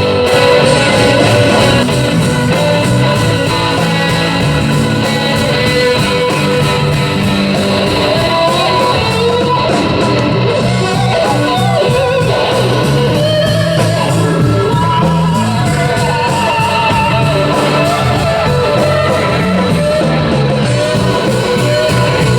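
Live rock band playing with electric guitar, and a voice singing over it from partway through.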